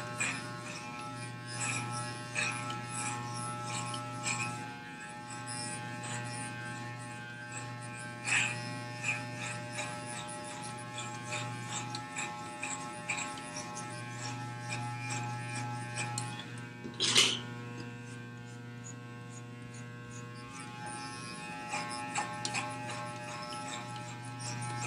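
Corded electric hair clippers with a number 8 guard buzzing steadily as they cut through the hair on top of the head, the buzz softening briefly a couple of times. One sharp knock sounds over halfway through.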